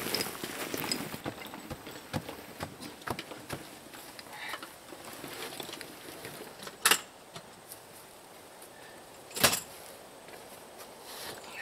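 Loaded garden wagon rattling as it rolls over the dirt yard for about the first second, then scattered footsteps and small clicks, with two sharp knocks, one about seven seconds in and a louder one about two and a half seconds later.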